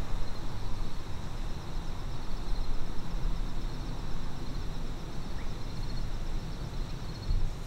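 Outdoor field ambience: an uneven low rumble of wind on the microphone, with a faint steady high trill in the background.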